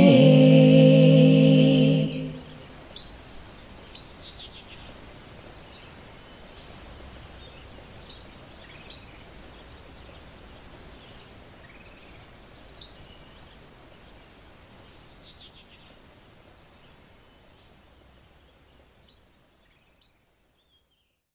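Three women's voices hold the final a cappella chord, which stops about two seconds in. Then faint woodland ambience with scattered short bird chirps, slowly fading away near the end.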